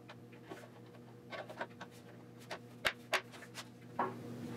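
Small clicks and knocks of concealed cabinet hinges being clipped onto their mounting plates as a walnut door is fitted, with two sharp snaps close together about three seconds in.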